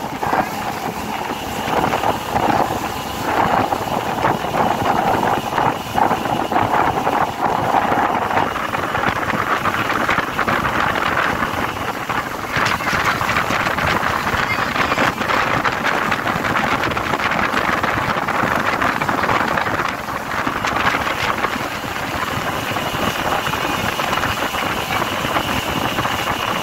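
Motorboat engine running under way, with wind buffeting the microphone. A steady hum in the engine noise drops out about a third of the way through.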